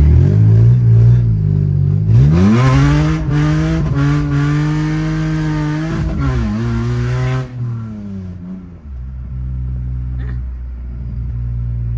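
BMW E46 engine under hard acceleration. It revs up steeply about two seconds in and holds high revs with a loud roar, with a brief dip about six seconds in. It lets off near seven and a half seconds and settles into a steady lower drone.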